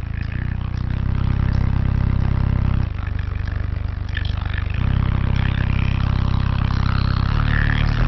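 Car subwoofers playing deep, sustained bass notes at very high volume inside the car cabin, the bass stepping between notes and swelling louder about a second in and again about halfway through.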